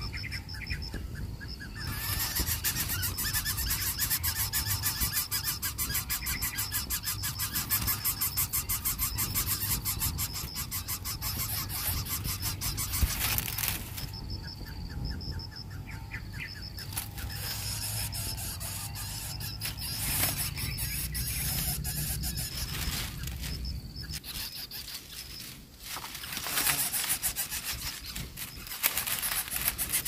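Lesser coucal chicks at the nest giving rapid, rasping begging calls in long bouts that stop and start several times.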